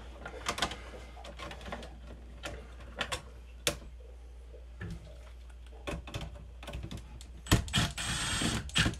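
Scattered clicks and taps of wires being handled in a metal breaker panel, then about seven and a half seconds in, a Milwaukee M18 cordless driver runs for about a second, tightening a breaker terminal screw.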